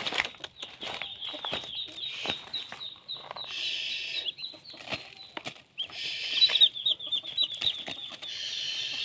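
Muscovy ducklings peeping continuously, a fast stream of short high chirps, each sliding down in pitch. Brief rustling three times, about a third of the way in, past the middle and near the end.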